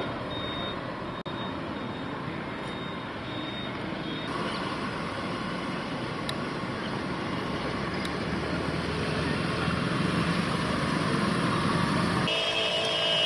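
Road traffic driving through floodwater: a steady rush of tyres throwing up water, with engines running. A vehicle horn sounds near the end.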